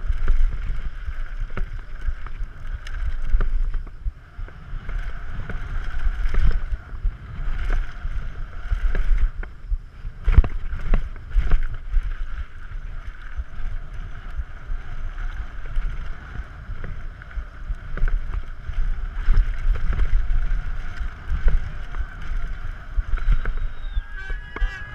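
Wind rushing over an action camera's microphone and knobby tyres rumbling over a dirt jump trail as a mountain bike descends at speed, broken by sharp knocks and rattles from landings, the hardest about ten seconds in. Near the end, voices from a crowd start to come in.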